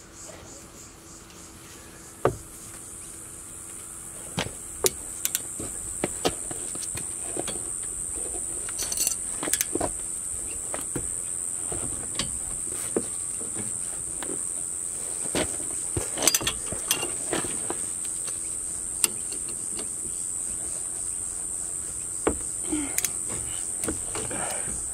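Irregular metallic clicks and knocks of a socket wrench and spanner against the rear brake caliper while a tight caliper bolt is worked loose. Under them runs a steady high-pitched drone that comes in about three seconds in.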